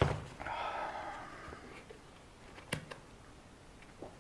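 Handling noises from the RC tyre and wheel being worked. A sharp thump at the start is the loudest sound. It is followed by a brief rasping scrape lasting about a second, and a single sharp click about two and a half seconds later.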